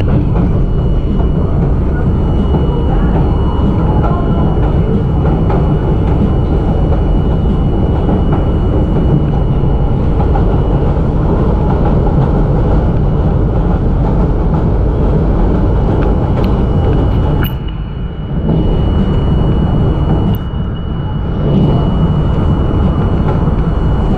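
R42 subway train running over the Williamsburg Bridge tracks: a steady, loud rumble of wheels on rail, with a thin high tone throughout. The noise drops briefly twice, about 17 and 20 seconds in.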